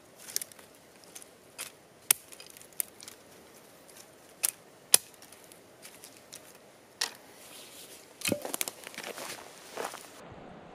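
Small hatchet chopping dry fallen branches: a series of sharp, irregular cracks a second or so apart, with a denser burst of cracking and crackling twigs about eight seconds in.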